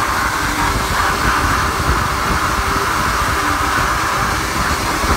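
Plastic media blast nozzle hissing steadily inside a blast cabinet, the stream of compressed air and plastic grit blasting the dirt off a Porsche 928 S4 camshaft cover.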